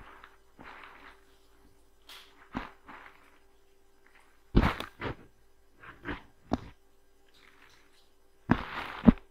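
A few irregular dull thumps and knocks, loudest in clusters about four and a half and eight and a half seconds in, with soft breathy hisses near the start.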